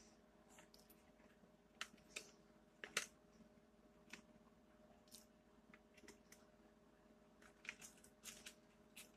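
Near silence: a low steady hum of room tone with scattered faint clicks and ticks, the strongest about three seconds in and a few more near the end.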